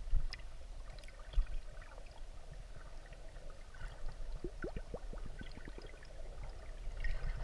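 Water gurgling and bubbling over a low rumble, with a short run of quick rising bubble sounds about halfway through and a few faint clicks.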